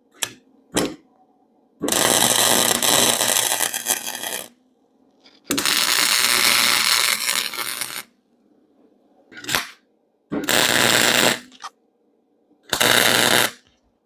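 Welder tack-welding steel exhaust pipe sections together: four bursts of harsh arc hiss, each lasting one to three seconds, with short clicks before the second pair.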